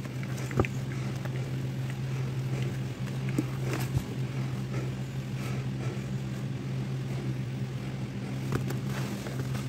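A steady low mechanical hum, with a few faint light taps and rustles.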